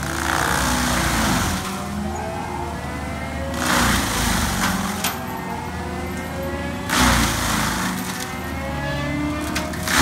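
Tracked skid steer's diesel engine and Gyro-Trac 500 HF mulching head running hard, with loud grinding surges every three seconds or so as the spinning cutter teeth chew into a palm tree and throw out chips. The pitch sags and recovers with each bite.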